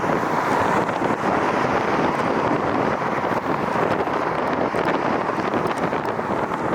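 Strong wind buffeting the microphone in a steady, loud rush, mixed with the roar of an airliner's jet engines.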